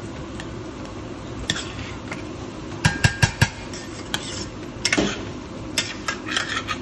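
A metal utensil knocking and clinking against a cooking pot, in short clusters: four quick knocks about three seconds in, another around five seconds and several more near the end, over a steady low hum.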